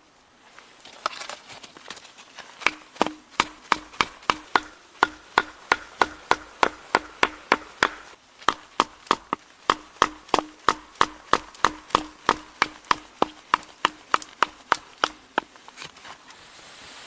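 An axe chopping wood into kindling on a chopping block: a long run of quick, evenly spaced strikes, about three a second, with a brief pause in the middle.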